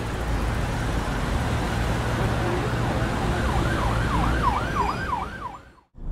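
Steady road-traffic rumble with an emergency-vehicle siren. From about halfway in, the siren gives a quick yelping wail, rising and falling three or four times a second. The sound fades out near the end.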